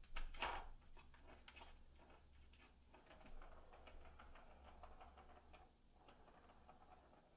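Plastic ball rattling and rolling in a circuit-track cat toy as a kitten bats at it. A quick cluster of sharp clicks comes at the start, then lighter irregular ticks and a soft rolling rattle.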